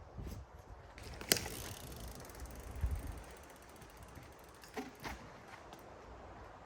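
Mountain bike's rear freehub ticking as it coasts, with knocks and rattles from the bike riding over rough trail; a sharp knock about a second in is the loudest sound, and two smaller knocks come near the end.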